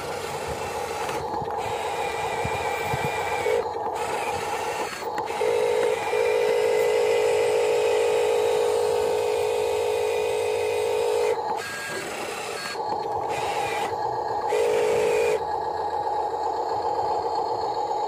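Electric motors and plastic gearboxes of radio-controlled model construction machines (an excavator and a dump truck) whining steadily, louder from about five to eleven seconds in and again briefly near fifteen seconds.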